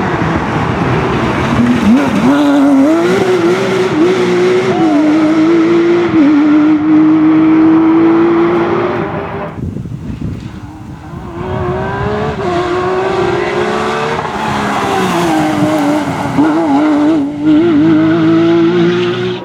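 Porsche racing car engines at full throttle, the engine note climbing and then dropping in steps at the gearshifts. About ten seconds in the sound fades briefly, then builds again with more shifts and quick wavering revs.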